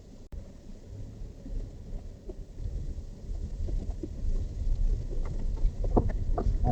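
Vehicle driving a rough off-road track: a low rumble that grows louder, with scattered knocks and rattles.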